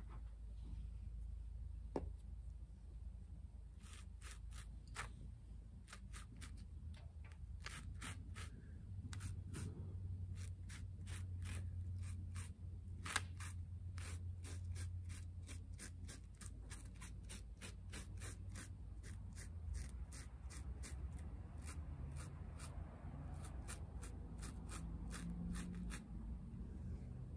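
Hand work on foam: a long, irregular run of quick little clicks and scrapes from about four seconds in, thinning toward the end. A faint steady low hum runs under it.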